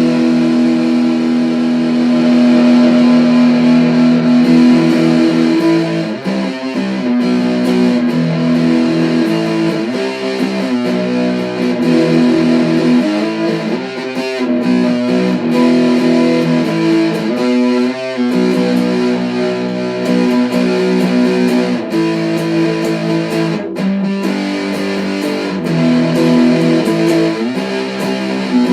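Instrumental music led by electric guitar: held chords at the start and again near the end, with passages of quickly changing notes in between.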